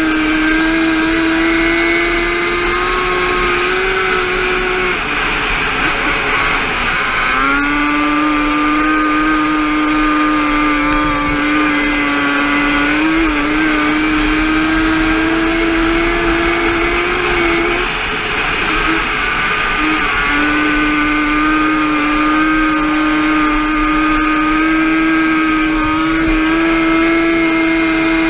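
Yamaha Banshee's twin-cylinder two-stroke engine run hard on a flat-track quad: a steady high-pitched note near full throttle on the straights, dropping twice as the throttle is backed off for the turns and climbing back as it pulls out.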